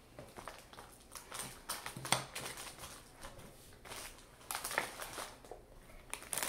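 Plastic snack packaging crinkling and rustling as it is handled, in scattered short crackles that are loudest about two seconds in and again around five seconds in.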